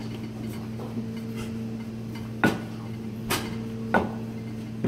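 Wooden rolling pin rolling out pasta dough on a plastic cutting board, with sharp knocks of the pin against the board, three of them in the second half. A steady low hum runs underneath.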